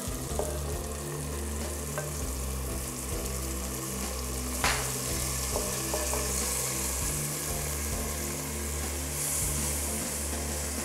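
Spiced masala sizzling in a clay pot as chopped fenugreek leaves are pushed in from a clay bowl, with one sharp knock about four and a half seconds in.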